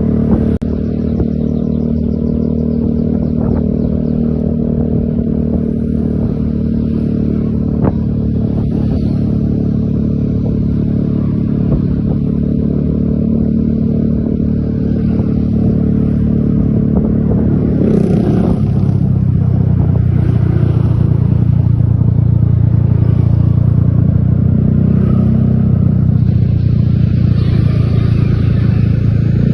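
Bus engine running steadily, with a short knock right at the start. A little past halfway its note shifts lower and grows a little louder.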